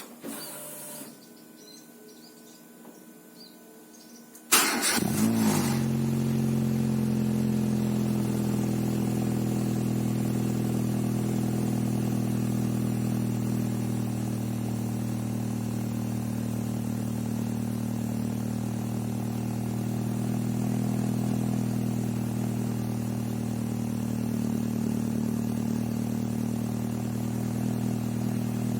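Proton Savvy's Renault D4F four-cylinder engine, breathing through a Spoon N1 aftermarket muffler, cold-started. After a few quiet seconds with a faint steady whine, it cranks and catches about four and a half seconds in with a brief loud flare, then settles into a steady idle.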